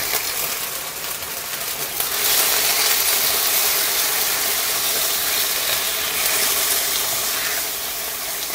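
Diced raw chicken sizzling in hot oil in a wok, stirred with a wooden spatula. The sizzle grows louder about two seconds in.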